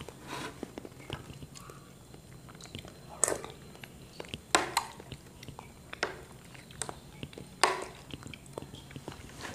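Someone eating soft chocolate pudding with vanilla custard off a metal spoon: wet mouth smacks, slurps and chewing, with several sharp, louder smacks at irregular intervals through the middle.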